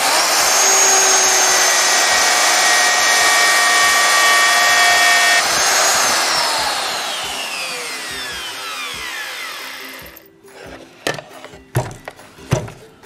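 Black & Decker router switched on and spinning up to a steady high whine as it cuts a slot through a board in a jig, then switched off, its pitch falling as it winds down over about four seconds. A few knocks follow near the end.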